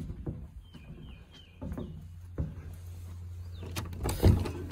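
Footsteps and handling knocks on a wooden porch, then a cabin's front door being unlatched and opened, with loud clattering knocks about four seconds in. A bird chirps faintly about a second in.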